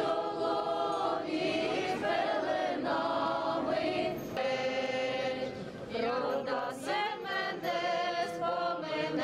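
A group of carollers, women and men, singing a Ukrainian Christmas carol together as a choir.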